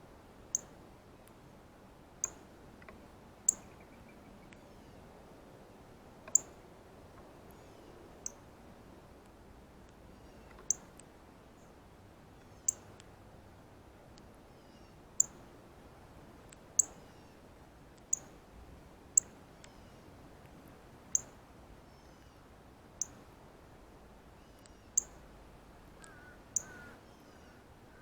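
Male northern cardinal giving its sharp, high metallic chip call over and over at uneven intervals of one to two seconds while feeding.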